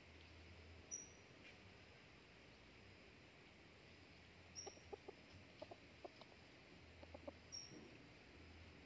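Faint, short clucks from a red junglefowl cock, coming in small clusters from about halfway through. A thin, high chirp repeats about every three seconds.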